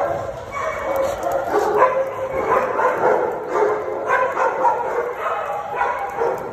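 A large group of dogs barking and yipping over one another without a break.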